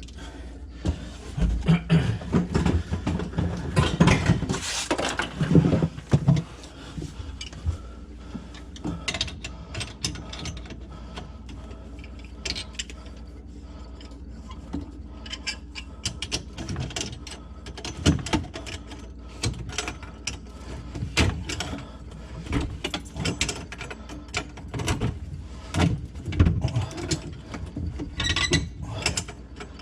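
Hand tools and metal plumbing parts under a kitchen sink: irregular clicks, knocks and scraping as a wrench works a compression fitting and pieces are handled.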